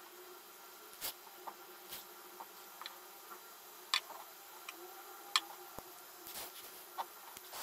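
Scattered small ticks and scuffs of fingers handling and pinching a rubber RC crawler tire, over a faint steady hum.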